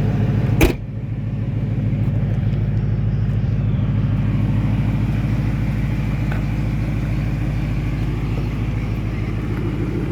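Roush Mustang's supercharged V8 idling with a steady, low rumble. A single sharp click cuts in about a second in.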